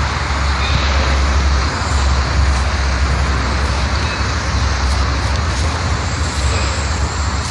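Steady traffic noise from a nearby toll road, a continuous low rumble with a hiss over it.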